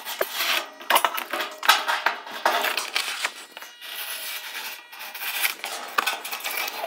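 Green masking tape and a cardboard grill mock-up being pressed and rubbed down by hand against a sheet-metal car body, making irregular crinkling and scratching with a few sharper clicks.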